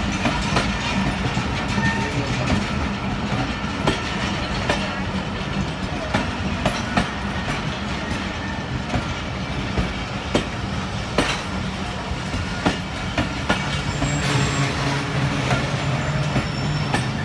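Pakistan Railways express passenger coaches rolling slowly past on a station loop line: a steady rumble with irregular sharp clacks of the wheels over rail joints.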